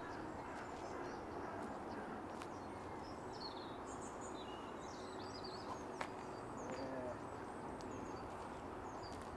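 Outdoor ambience: a steady background rush with small birds chirping now and then, most of the chirps near the middle, and a few faint clicks.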